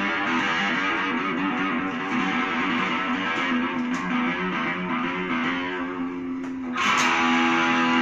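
Electric guitar played in a quick run of changing notes, then a chord struck near the end and left ringing.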